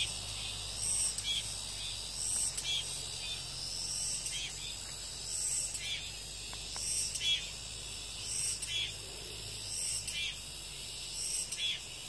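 Cicadas singing in the trees: a shrill, high buzzing chorus that swells and fades in repeated phrases about every second and a half.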